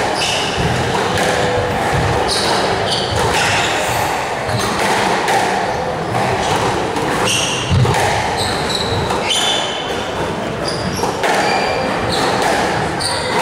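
Squash rally: the ball repeatedly struck by rackets and hitting the court walls, with sharp, short high squeaks from the players' shoes on the wooden court floor.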